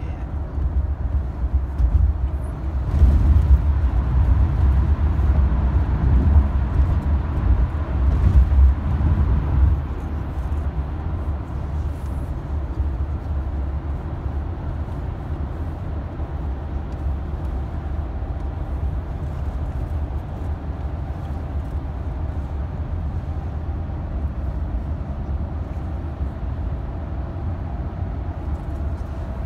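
Road and engine noise heard inside a moving car's cabin: a steady low rumble, louder for several seconds near the start, then even.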